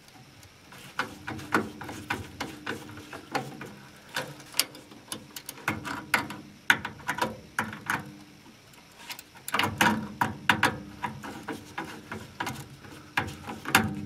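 Irregular clicks and light metallic ticks of a screwdriver turning the screw terminals on a furnace control board and wires being pressed into place, busiest about ten seconds in, over a low steady hum.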